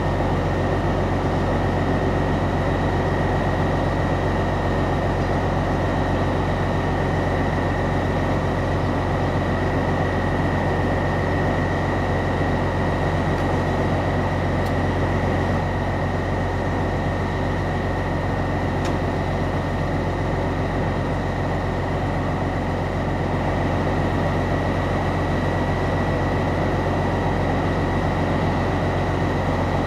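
Diesel engine of a DR1A diesel multiple unit idling steadily while the train stands, a constant low drone with a steady high-pitched whine on top.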